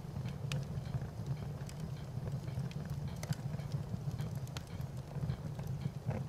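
Wood fire burning: a steady low rumble with irregular sharp crackles and pops scattered throughout.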